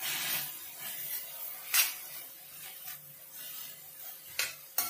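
A metal spoon stirring and scraping vegetables and paste in a stainless steel kadai, with a few sharp clinks of the spoon against the pan, the loudest about two seconds in.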